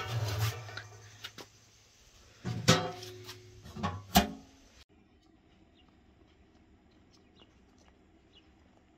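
Metal door of a brick bread oven being shut and latched: two loud, ringing metallic clangs about two and a half and four seconds in, with lighter clicks before them. Then a faint background hum with a few soft ticks.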